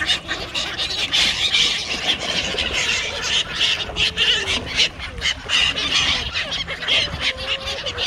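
A crowded flock of coots, black-headed gulls and mallards calling and splashing on the water: a dense, unbroken run of short, sharp calls and splashes, one on top of another.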